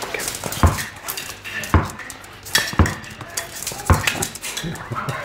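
Red Fell-type Patterdale terrier scrambling after a tennis ball: about half a dozen sharp knocks and clatters at uneven intervals, with scuffling in between.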